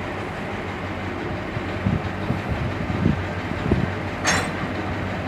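A heavy engine running steadily, with a few dull clunks and a short hiss about four seconds in.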